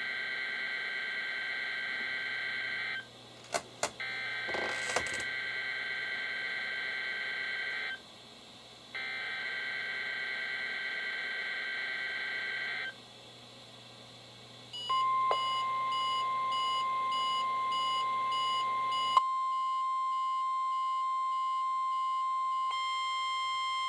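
NOAA Weather Radio SAME header for a Required Weekly Test, received on weather radios: three bursts of warbling two-tone digital data, about four seconds each and a second apart, with a few sharp clicks about four seconds in. Then the 1050 Hz warning alarm tone comes on and holds steady, with a fast high beeping over its first few seconds.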